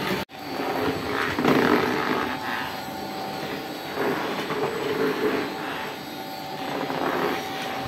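Motor-driven wooden rotary oil press (a vaagai-wood chekku) running, its pestle grinding coconut in the mortar: a steady mechanical hum with a low swell about every three seconds. The sound cuts out briefly just after the start.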